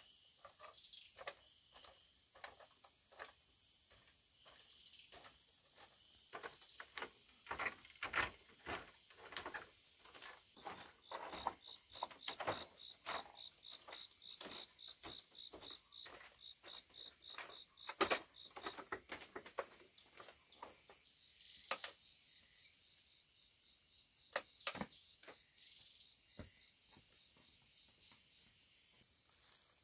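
Insects chirping outdoors: a steady high-pitched drone with rapid pulsed trills, over irregular sharp clicks, snaps and rustles of handling, thickest through the middle, with one louder snap a little past halfway.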